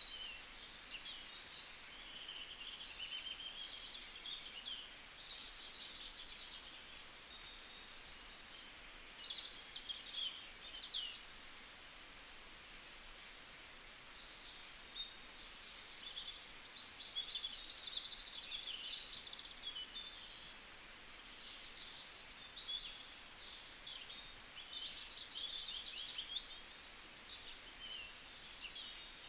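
Many small birds chirping and twittering at once in a dense, unbroken chorus of quick high calls.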